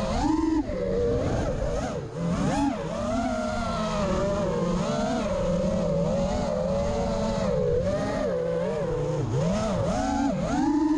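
FPV quadcopter motors and propellers whining. The pitch keeps rising and falling as the throttle changes.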